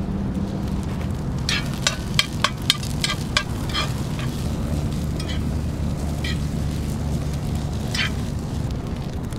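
Metal spatula scraping and knocking against a cast iron pan as fried rice is turned over a campfire. A quick run of about eight strokes comes a couple of seconds in, then a few single ones spaced out, over a steady low hum.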